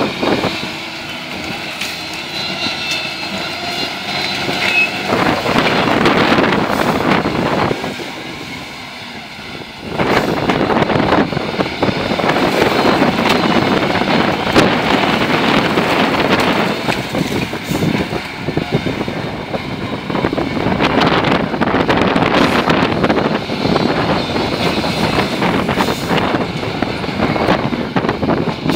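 Heli ZL35E wheel loader's diesel engine working under load while its bucket shoves brush and branches, with the crash and rustle of the vegetation being pushed. Quieter for the first few seconds and again around eight to ten seconds in, then louder and fuller from about ten seconds on.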